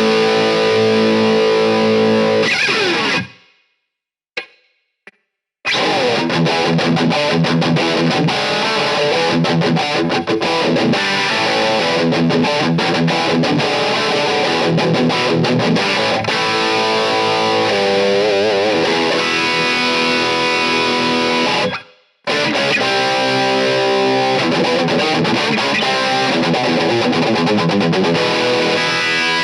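Epiphone Flying V electric guitar played with a distorted lead tone, through an Xotic BB Preamp into a Marshall SC20H amp head with a simulated 2x12 Marshall cabinet. The playing stops for about two seconds some three seconds in, with a couple of faint short notes in the gap, and cuts out briefly near the end. Some held notes waver with vibrato.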